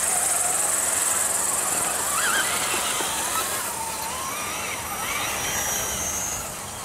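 Electric motors and gears of radio-controlled scale crawler trucks whining as they drive on a dirt trail, the whine rising and falling with the throttle, over a steady high outdoor hiss.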